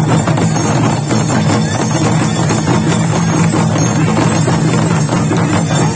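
An ensemble of large traditional Nepali drums playing a fast, continuous beat for a Dhami shaman dance.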